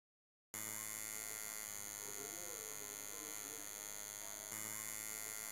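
Electric tattoo machine buzzing steadily, a dense hum with a high whine above it, starting about half a second in.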